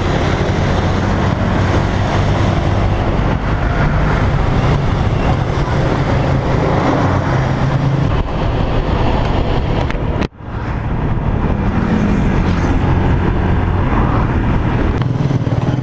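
Motorcycle engine running at a steady cruise under a heavy rush of wind on the rider's microphone. The sound cuts out for an instant about ten seconds in.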